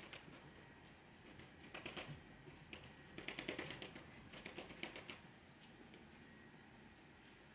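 Faint quick patting and tapping of fingertips on the skin of the cheeks, blending in cream blush, in three short bursts of rapid soft taps.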